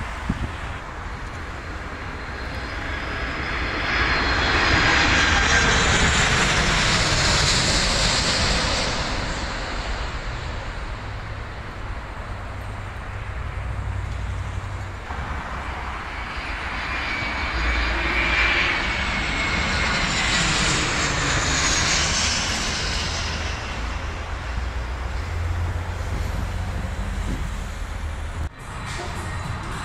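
Jet airliner engines on landing approach, passing close. The sound swells twice, once about four seconds in and again about seventeen seconds in, with a whine that slides in pitch as each pass goes by, over a steady low rumble.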